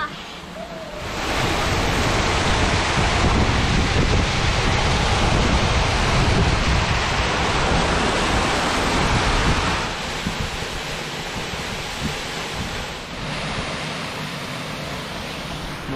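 Steady rushing noise of wind buffeting the microphone and running water at a waterfall pool. It swells about a second in and eases somewhat after about ten seconds.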